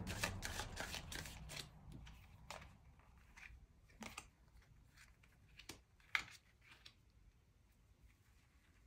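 Tarot cards being shuffled and handled: a fast run of soft card clicks that thins out over the first two seconds, then a few separate snaps and taps of single cards.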